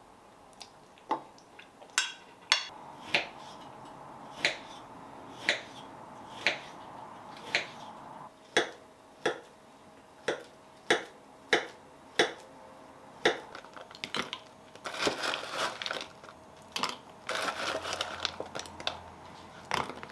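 Kitchen knife slicing a banana on a wooden cutting board: a steady series of sharp knocks, about one or two a second, as the blade strikes the board. Near the end the knocks give way to a faster, busier clatter.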